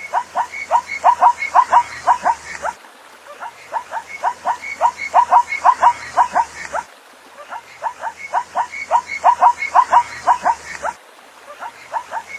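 Zebra calling: runs of quick, yelping barks, about five a second, each run building in loudness. Three runs are heard, with short breaks between them, as the same recording loops.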